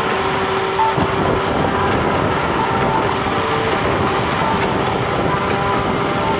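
Nanrobot LS7+ electric scooter riding along: a steady rush of wind and road noise with a faint held motor whine, and one short bump about a second in.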